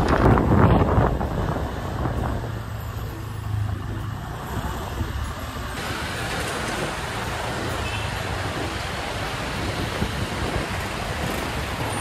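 Steady road and traffic noise heard from the back of a moving motorcycle taxi, with the bike's engine running and the rush of air past the microphone, loudest in the first second. Other cars and motorcycles are running close by in city traffic.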